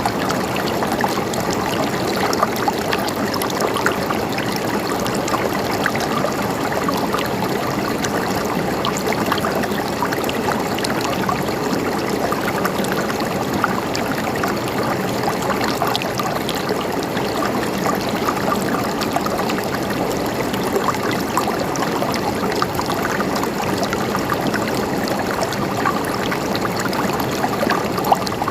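River water flowing steadily over rocks, a constant rushing with fine gurgles and splashes scattered through it.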